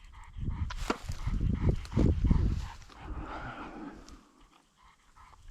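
Retrieving hunting dog panting and moving close by in quick, uneven breaths, the sound fading out about three-quarters of the way through.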